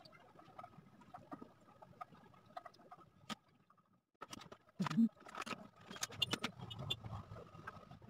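Light scratching of a pencil on sketchbook paper. About five seconds in there is a thump, then a run of clicks and rustling as pencils and paper are handled and a different coloured pencil is picked up.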